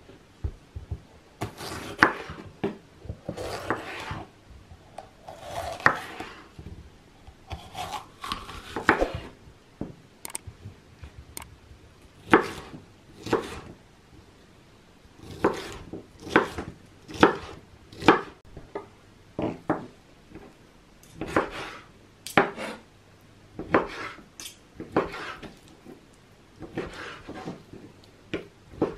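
A chef's knife cutting a red bell pepper on a wooden cutting board: an irregular run of sharp knocks of the blade against the board, some drawn out into longer scraping slices. Near the end, the knife cuts raw chicken breast on the same board.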